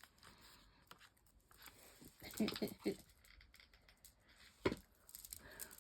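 Faint handling of paper and stickers: soft rustles and light taps, with one sharper tap a little before the end.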